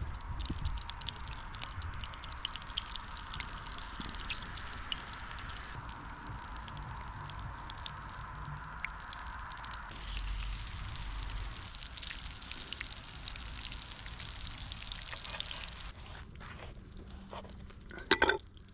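Cottage cheese fritter frying in hot fat in a pan: steady sizzling with many small spits and crackles. The sizzle drops off about two seconds before the end, and a brief sharp clatter follows near the end.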